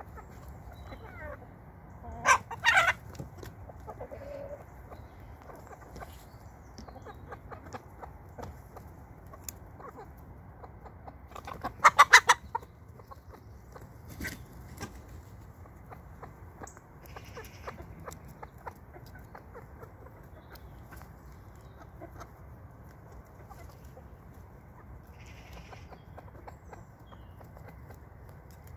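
Flock of chickens clucking and calling close by, with two loud, brief calls, one about two seconds in and one about twelve seconds in.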